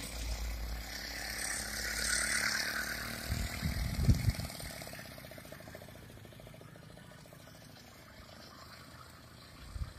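Small engine of a 1961 Gauja Riga-2 moped running as it rides past and away, fading over the middle of the stretch, with a few low thumps about four seconds in.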